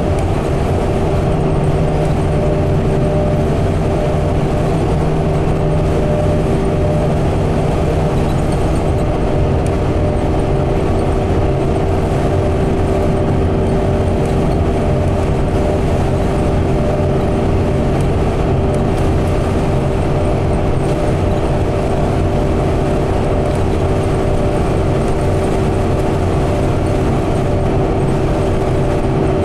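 Inside a 2016 Gillig CNG bus cruising at highway speed: its Cummins Westport natural-gas engine and Allison transmission drone steadily under road and tyre noise, with a constant hum held at one pitch.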